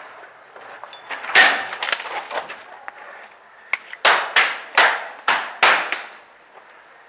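Paintball markers firing: sharp pops, one loud shot about a second and a half in, then a quick string of about six shots, roughly three a second, between about four and six seconds in.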